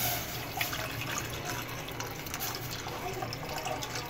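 Warm full-cream milk poured in a steady stream into a stainless-steel pot, splashing into the milk already collecting in it.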